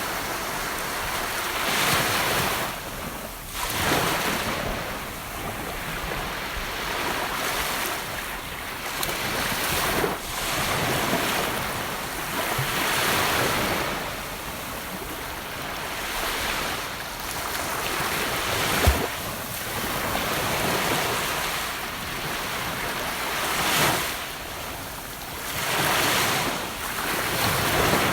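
Gentle ocean waves breaking and washing up a beach, a steady surf hiss that swells and eases every two to four seconds. A brief sharp click about two-thirds of the way through.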